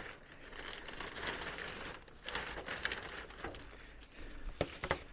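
Plastic sheeting being pulled back, rustling and crinkling irregularly, with a couple of sharp clicks near the end.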